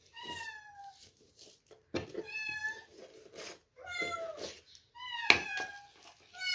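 A cat meowing over and over, five meows spaced a second or two apart, each one falling in pitch.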